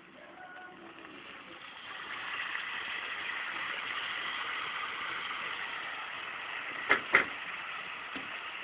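Ackee and saltfish frying in a hot pan as the ackee goes in: a steady sizzle that builds over the first couple of seconds, then holds. Two sharp knocks come close together about seven seconds in.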